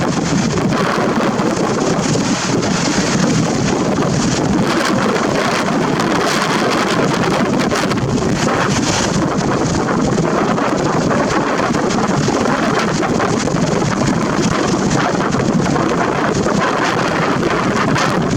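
Wind buffeting the camera's built-in microphone: a loud, steady rushing noise full of fine crackle, with no let-up.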